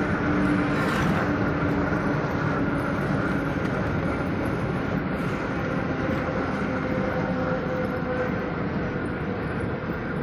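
Steady engine and road noise heard from inside a moving vehicle, with a faint hum running under it.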